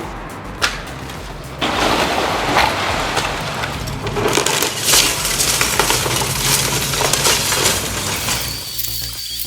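A house being torn down by an excavator: debris crushing and breaking, with many sharp clinks and cracks of breaking glass and material. It starts quieter and grows loud and dense about a second and a half in.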